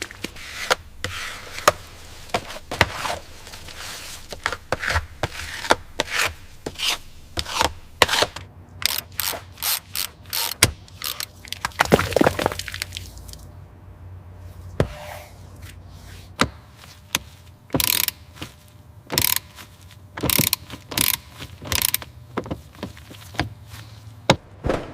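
Hand tool work: an irregular run of sharp clicks and knocks, with some scraping.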